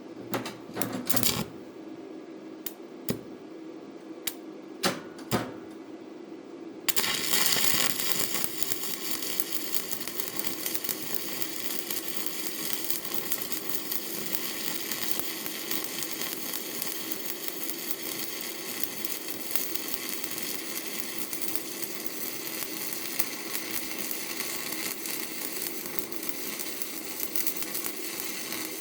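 Stick (SMAW) welding arc from a 7018 1/8-inch electrode at about 110 amps: a few sharp clicks, then about seven seconds in the arc strikes and burns with a loud, steady hiss.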